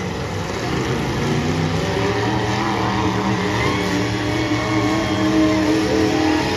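Engines of several demolition derby cars running and revving together, a steady mix of engine notes at different pitches that rise and fall gently.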